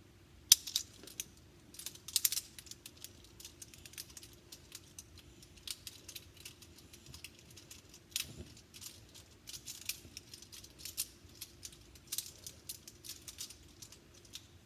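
Small plastic fidget toy being folded by hand into a box shape, giving an irregular scatter of sharp clicks and light rattles.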